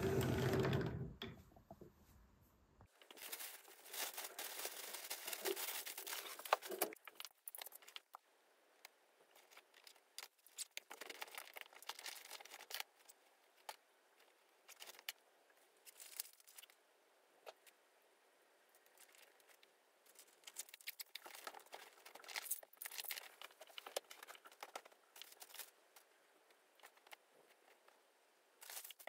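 Rustling and crinkling handling noises come in irregular bursts, with scattered light clicks. A brief, louder low thump sounds right at the start.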